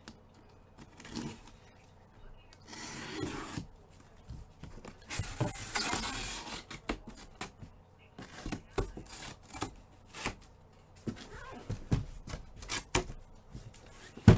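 A Panini cardboard case being opened: tape slit and torn with two longer rasping stretches, then a run of short knocks and taps as the flaps are pulled open and the card boxes inside handled.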